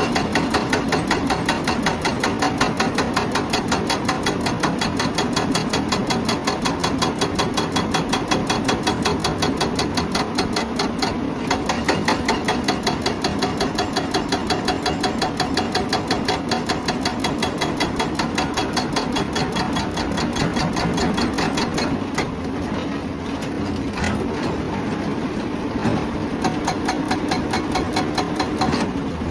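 Hydraulic breaker on a Hyundai excavator hammering rock in a rapid, even run of blows, over the excavator's engine running steadily. About three-quarters of the way through, the blows turn fainter and less regular.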